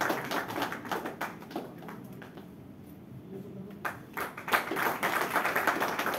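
A small group clapping by hand, thinning to a lull about two seconds in and picking up again about four seconds in.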